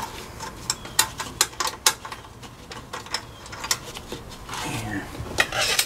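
A threaded cable fitting being screwed on and tightened down by hand: a string of irregular small clicks with rubbing, from metal parts turning against each other.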